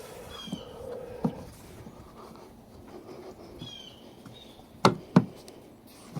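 A small bird chirps twice, each a quick run of high falling notes, over a few sharp knocks, the two loudest close together about five seconds in.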